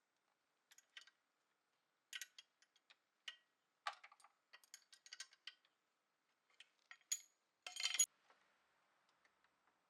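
Small metal tools and parts clicking and clinking at irregular moments, with a short louder metallic rattle a little before the 8-second mark.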